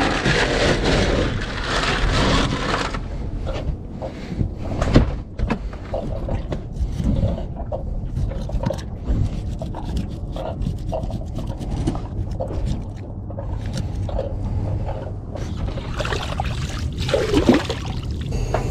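A knife cutting and scraping through a lingcod as it is filleted and skinned on a cooler lid. Ice rattles as the fish is lifted out of the cooler at the start, and hands splash in seawater near the end, over a low steady rumble.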